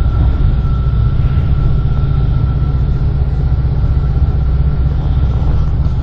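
Steady low rumble of a minibus on the move, heard from inside the passenger cabin, with a thin steady whine running through it.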